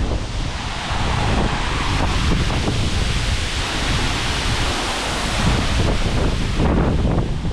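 Waterfall roaring steadily: falling water as a loud, even rush with a deep low rumble.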